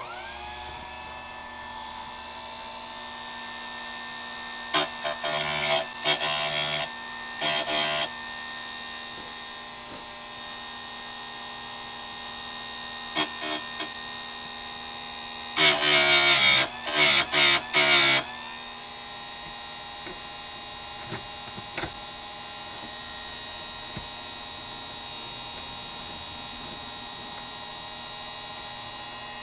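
Harbor Freight electric chainsaw sharpener switched on with a click, its grinding motor spinning up within about a second and then running with a steady hum. As the head is lowered, the grinding wheel bites into the chain's cutter teeth in short bursts of loud grinding: a few about five to eight seconds in, and a longer run of them a little past the middle.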